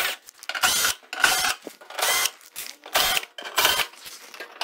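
Cordless power driver run in about six short bursts, each a brief whine, backing sheet-metal screws out of a pellet grill's lower apron.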